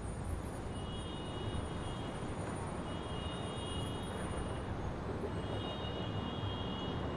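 Steady outdoor urban ambience: a low wash of road traffic noise. A thin high steady tone sounds three times over it, each lasting about a second or more.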